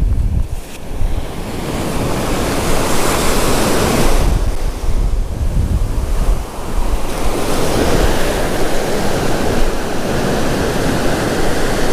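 Ocean surf breaking and washing up the beach, with wind buffeting the microphone. The wash swells about three seconds in and again past the halfway point.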